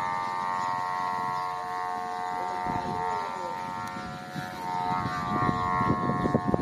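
Kite hummer (sumba) on a flying airplane-shaped kite droning with a steady, buzzing multi-toned hum. Low rumbles and bumps come in over it near the end.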